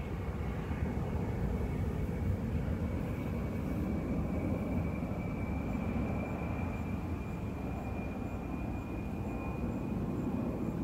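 A-10 Thunderbolt II jet flying past, its twin GE TF34 turbofans giving a steady rumble with a thin high whine held at one pitch over it.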